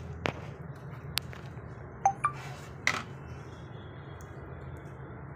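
A few light clicks and small metallic clinks from a desktop motherboard being handled on a tabletop, two of them with a brief ringing ping, over a steady low hum.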